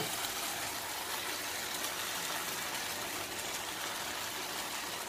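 A frying pan of onions and mixed vegetables in sauce sizzling steadily in a little oil.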